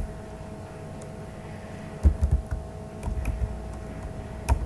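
Steady electrical hum with low rumbling bumps about two and three seconds in, and a single sharp click near the end.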